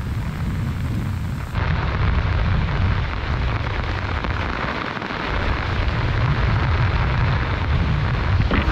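Wind buffeting the microphone: a steady low rumble under a broad rushing hiss.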